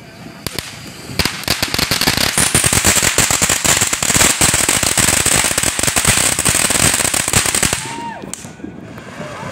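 Ground firework fountain spraying crackling stars: a dense, rapid crackle of tiny pops with a high steady hiss over it. It builds about a second in and cuts off sharply near the end.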